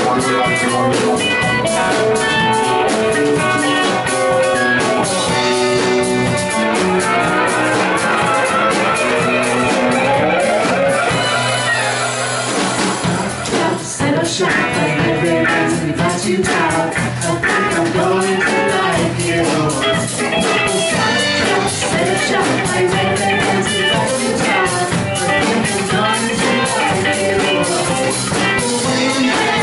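Live rock band playing: electric guitars, electric bass and drum kit, with a singer's voice at times.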